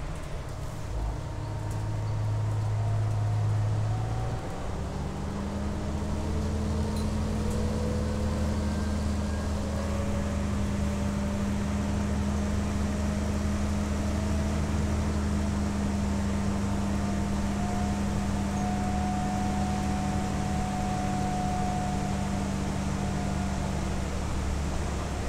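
Interior drivetrain sound of a New Flyer DE60LFR diesel-electric hybrid articulated bus with an Allison EP50 hybrid drive, running as the bus drives. A steady low hum changes pitch about four seconds in, and faint whines slowly rise in pitch above it.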